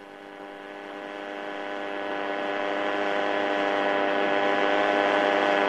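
A steady hum at one unchanging pitch, thick with overtones, growing gradually louder over the first few seconds and then holding level.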